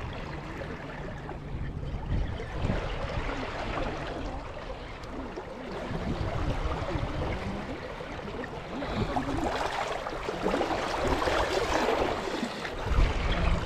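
Sea water washing and lapping against the shore: a steady wash that swells a little a few times.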